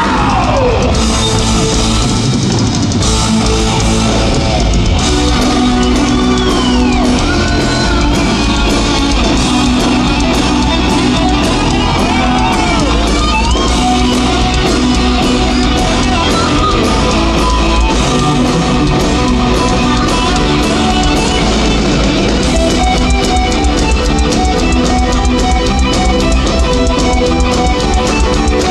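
Hard rock band playing live through a large festival PA: distorted electric guitars, bass and drum kit, with gliding high notes over the band.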